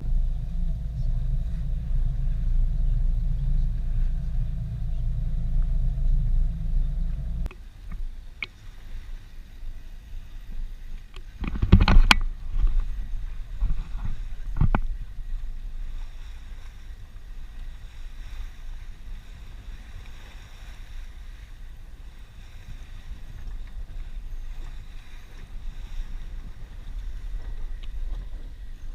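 Low steady rumble on a boat underway, with a faint steady hum, which stops abruptly about seven seconds in. A few sharp knocks follow, the loudest about twelve seconds in, then a quieter steady low rumble.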